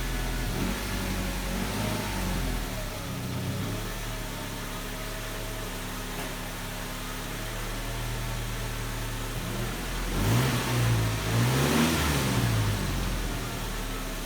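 2000 Chevrolet Tracker engine idling, with a lifter tick in the engine. It is blipped a few times near the end, the pitch rising and falling quickly with each rev.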